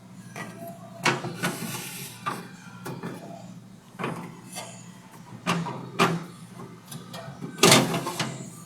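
Refrigerator shelves, drawers and door being handled: a series of clacks and knocks with short sliding scrapes, the loudest cluster near the end, over a steady low hum.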